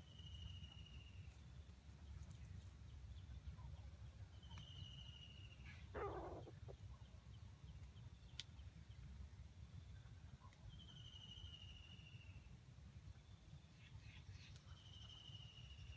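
Near silence: quiet undergrowth ambience with a faint low rumble. A faint high, slightly falling call repeats four times about five seconds apart, and a brief faint lower call comes about six seconds in.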